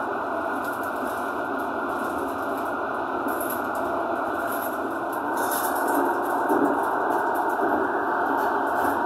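BOGESTRA tram running through an underground tunnel, heard from inside the car: a steady noise of wheels on the rails.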